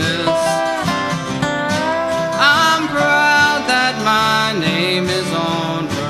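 Dobro (resonator guitar) playing a lead with sliding notes over strummed flat-top acoustic guitar rhythm, an instrumental break in a country gospel song.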